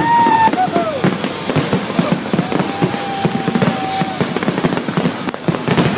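Aerial fireworks going off in a rapid finale barrage: a dense run of bangs and crackles with no pause. A clear held tone sounds over it for about two seconds in the middle, and arcing tones rise and fall near the start.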